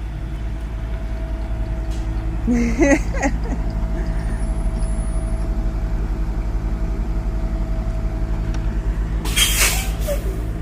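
Large vehicle's engine idling steadily, with a brief voice about three seconds in and a short burst of hissing near the end.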